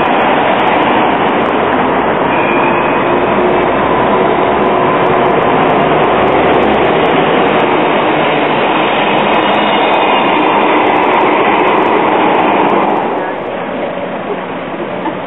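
Bombardier Flexity low-floor tram running along street track, with a car passing, a steady rushing noise and faint high whines. The sound drops to quieter street noise near the end.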